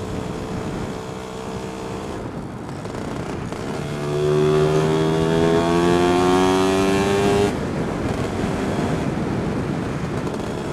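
Lambretta scooter's two-stroke single-cylinder engine running on the move, with wind noise rushing over the microphone. About four seconds in, the engine note gets louder and climbs steadily in pitch as the scooter pulls. Shortly after halfway it drops back suddenly to a quieter, steady run.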